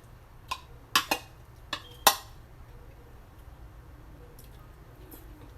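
Cutlery clinking against a plate while a bite of food is taken, about five light clicks in the first two seconds or so.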